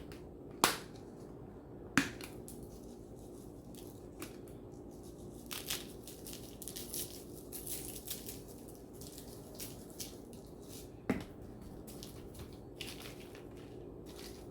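Seasoning being shaken from a shaker onto raw ribeye steaks: soft rustling and shaking with a few sharp clicks of the container, three of them standing out. A faint steady engine hum from a lawn mower runs underneath.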